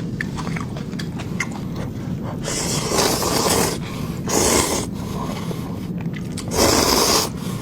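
A person eating pork fat close to the microphone, over a steady low rumble, with three loud rushing bursts of noise, each under about a second long, starting about two and a half, four and six and a half seconds in.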